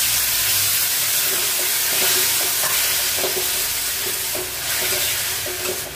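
Chicken and potato curry sizzling in a hot metal kadai as a cup of water goes in: a steady loud hiss, with a steel spatula lightly scraping the pan.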